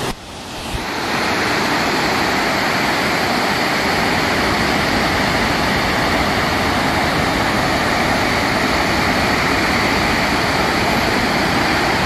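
Steady rushing roar of a large waterfall, river water cascading over rock ledges. It swells up over the first second or two, holds steady, and cuts off suddenly at the end.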